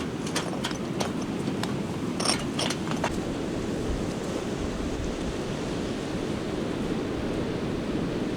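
Steady wash of sea waves and wind, with a few sharp light clicks in the first three seconds.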